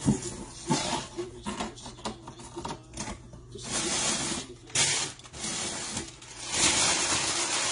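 Cardboard box flaps being pulled open with a few sharp knocks and scrapes, then crumpled brown kraft packing paper crinkling loudly as it is pulled out of the box, in two bursts about four seconds in and near the end.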